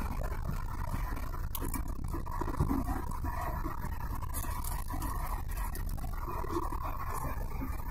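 Steady road and tyre rumble with the engine running, heard from inside a moving car's cabin on rough, patched asphalt. A brief louder jolt comes about two and a half seconds in.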